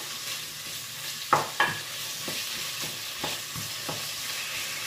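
Pork and pork belly pieces sizzling in oil in a pot while a wooden spoon stirs them, knocking and scraping against the pot. There are two louder knocks about a second and a half in, then lighter ones about every half second.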